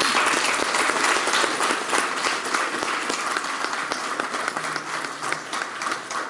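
Audience and cast applauding: a dense, steady clatter of many hands clapping that eases off slightly near the end.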